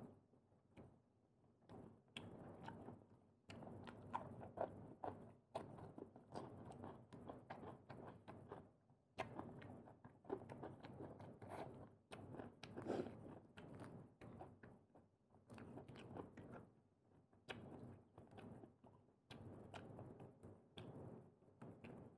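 Faint close-up chewing and biting of prawns and clams, irregular and wet, with many short sharp clicks.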